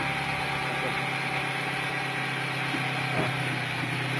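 A machine running steadily with a constant low hum, like an idling engine.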